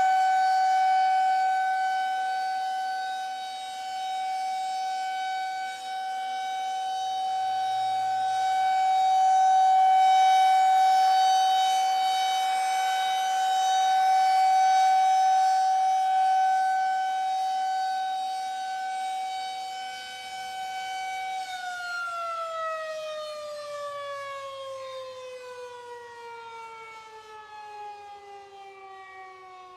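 Civil-defence air-raid siren sounding the alert: one steady high tone whose loudness swells and fades. About two-thirds of the way through it winds down, the pitch falling steadily and the sound growing quieter.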